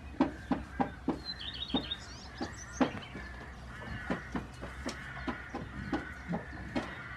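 A run of short dry clicks or knocks, roughly three a second and uneven, with a quick trill of high bird chirps about a second in.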